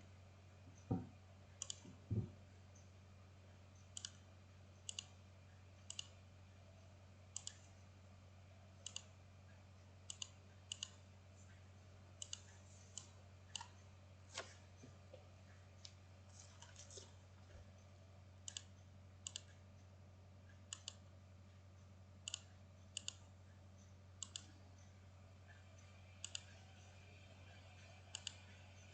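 Sparse, sharp computer mouse clicks, single and in quick pairs, about one a second, over a faint steady low hum.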